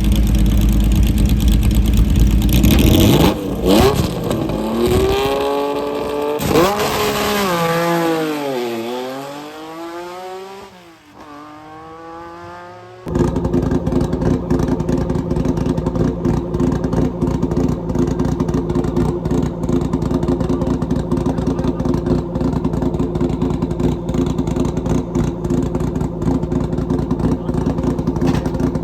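Historic rally car engine held at revs on the start line, then launching and accelerating away. It shifts up through the gears, its pitch climbing and dropping several times as it fades into the distance. After an abrupt cut, another rally car's engine runs steadily with a rapid crackle.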